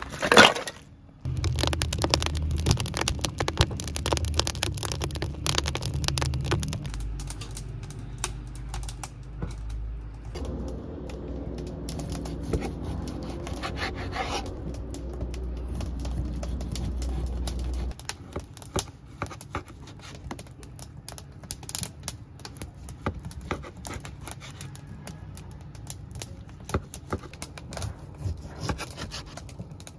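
Kitchen knife cutting raw meat on a wooden board: scraping strokes and light irregular taps and clicks. A sharp knock comes right at the start, and a steady low rumble runs underneath until it stops suddenly a little past halfway.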